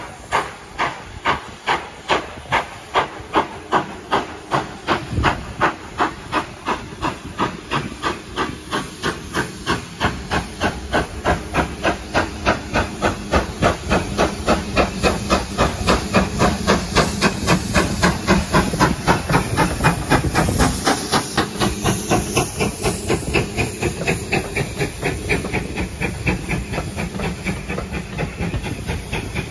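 Steam locomotive exhaust chuffing as it accelerates. The beats quicken steadily from under two a second to a fast, almost continuous rhythm and grow louder toward the middle, with a steady steam hiss behind them.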